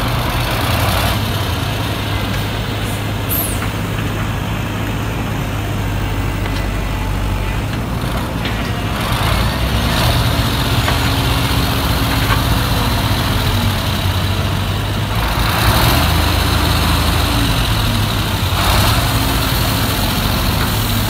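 Crawler hydraulic excavator working soil and gravel: its diesel engine runs steadily with a low drone, the tone rising under hydraulic load a few times from about halfway. Short bursts of scraping, rattling noise come as the bucket works the gravel.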